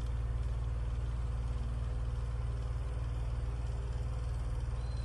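Comfort Zone 9-inch cradle fan with metal body and aluminum blades running at a steady speed: a constant low motor hum with airy noise over it, noisy rather than quiet.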